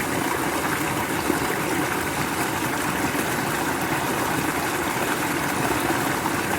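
Waterfall rushing steadily down a rocky fellside stream.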